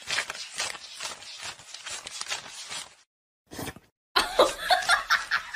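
Paper banknotes being counted by hand, a fast crisp rustling of notes flicked one after another. After a short break near the end comes a burst of laughter.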